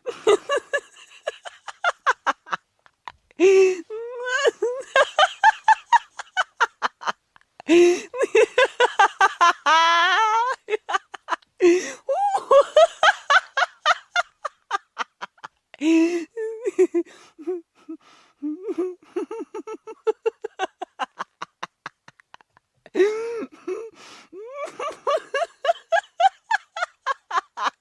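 A person laughing hard in several long bouts of quick, rhythmic 'ha-ha' pulses, with short pauses for breath between bouts.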